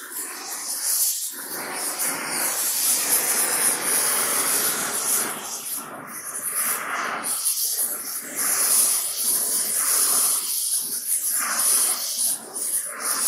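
Oxy-fuel torch flame hissing steadily as it heats the pivot bore of a cast-iron tractor front axle casting, warming it to expand the hole for a shrink fit of chilled bushings. The hiss dips briefly several times and comes back.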